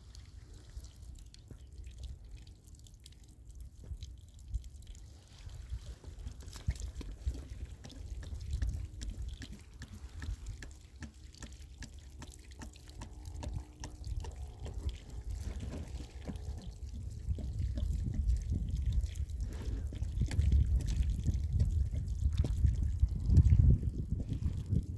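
Water poured from a plastic jerrycan onto loose soil at the base of a sapling, trickling and splashing. The sound grows louder through the second half as more water flows.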